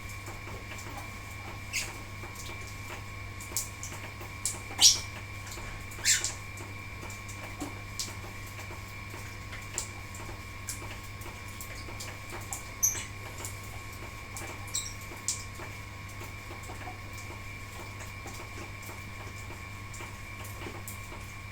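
Lovebirds giving scattered short, sharp chirps, a dozen or so spread through the stretch, the loudest about five seconds in, over a steady low hum.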